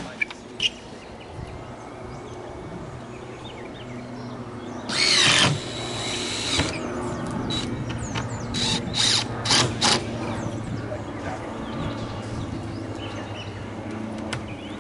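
A power tool runs in one short burst about five seconds in, followed by several sharp knocks spread over the next few seconds, over a steady low hum.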